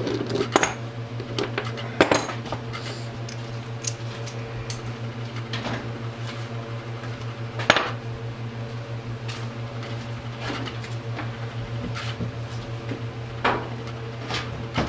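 Hand tools and metal engine parts clinking and clanking now and then during an ATV engine teardown, with the loudest clank a little before eight seconds in. A steady low hum runs underneath.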